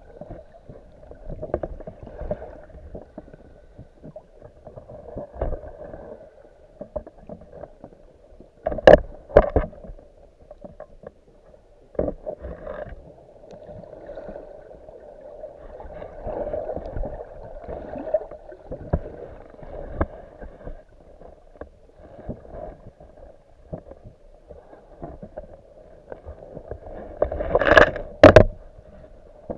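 Muffled underwater water noise picked up by a submerged camera, with a few sharp knocks about nine seconds in and a louder pair near the end.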